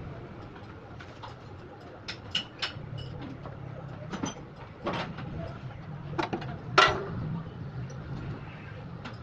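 Irregular sharp clicks and knocks, the loudest about seven seconds in, from work on a Mahindra's oil brakes, over a low steady hum.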